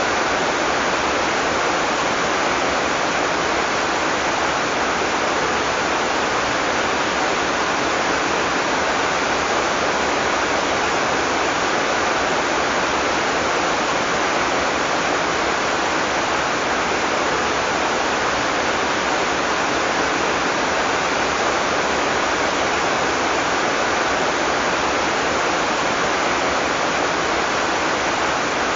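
Heavy rain falling steadily: a dense, even hiss with no single drops or thunder standing out.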